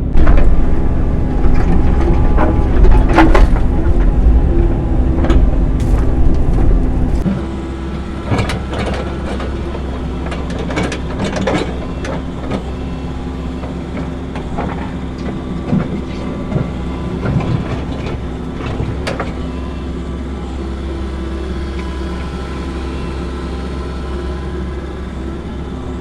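Excavator diesel engine running under working load, heard from inside the cab, with scattered sharp knocks and scrapes of the bucket working concrete and ground. The engine is louder for about the first seven seconds, then settles lower and steadier.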